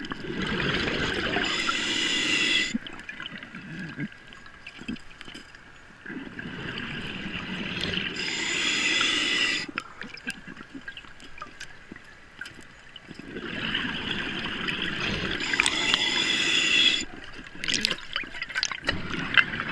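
Scuba diver breathing through a regulator underwater: three breaths about seven seconds apart, each a burble of bubbles and a hiss that cuts off suddenly.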